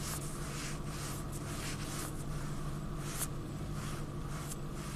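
A steady low hum in the truck cab, with faint soft brushing as a gloved finger swipes across a scan-tool touchscreen. There is one light tick about three seconds in.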